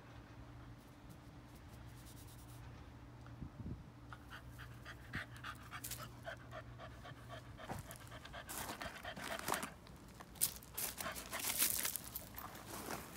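French bulldog panting in quick, even breaths, about four or five a second, starting a few seconds in and growing louder, with the heaviest, loudest breaths in the last few seconds.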